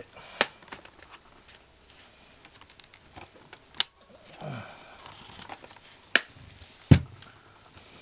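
Hitachi Prius Note laptop's plastic case being handled, turned over and opened, with several sharp clicks and knocks, the loudest two near the end.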